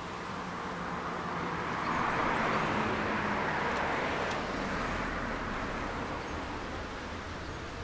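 A vehicle passing, its rushing noise swelling over the first few seconds, loudest around the middle, then fading away.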